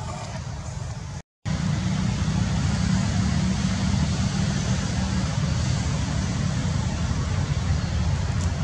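Steady low rumble with a thin hiss over it, outdoor background noise, with a brief total dropout about a second in.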